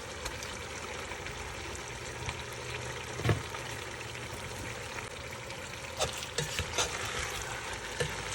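Seasoned onions sizzling steadily in hot oil in a pot, with a sharp knock about three seconds in and a few lighter knocks near the end.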